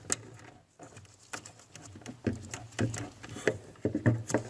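Scattered small clicks and knocks of a plastic wire-harness plug being handled and lined up with the ice maker's socket.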